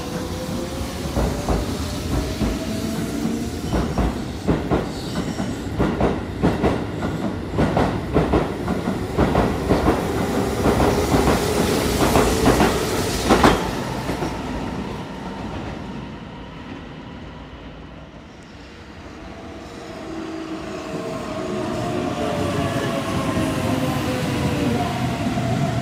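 Keihan 6000 series electric train pulling out of the platform: its traction motors whine, rising steadily in pitch, while the wheels clack over rail joints faster and louder until it clears about 14 seconds in. After a quieter lull, a second electric train comes along the far track near the end, its motors whining.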